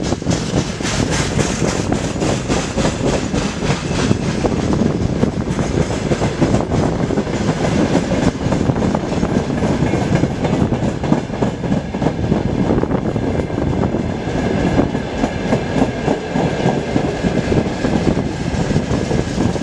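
Long freight train of high-sided open wagons rolling past close by: a steady rumble of wheels on rail, with rapid clicking as the wheels run over the rail joints.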